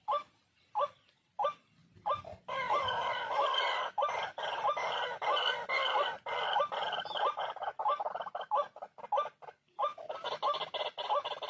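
White-breasted waterhen (ruak-ruak) calling: short notes repeated about one and a half times a second, then from about two seconds in a dense, continuous run of overlapping calls.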